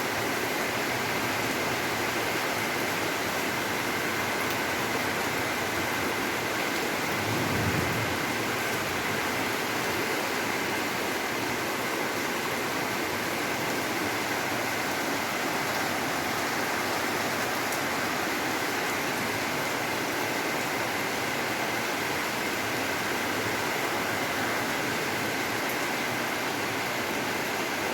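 Heavy rain falling steadily, an even hiss of downpour, with a brief low rumble about seven seconds in.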